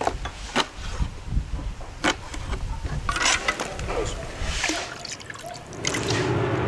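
Scattered knocks and clatter of kitchen handling, then liquid poured from a metal scoop into an aluminium pot, a steady rush beginning near the end.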